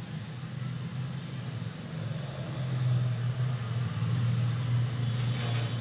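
Low, steady motor hum in the background, swelling about two seconds in and dropping back near the end, with a short rustle just before it drops.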